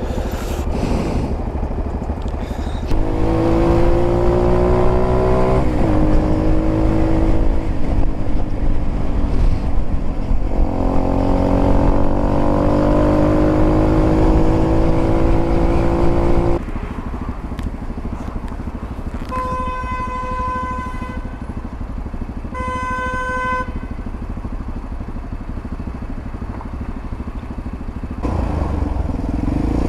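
A 125 cc four-stroke single-cylinder motorcycle engine pulling hard through the gears, its pitch climbing steadily through two long gear pulls. About halfway through the revs drop off sharply to a steadier run. Later a vehicle horn sounds twice, each blast about a second and a half, and near the end the engine picks up again.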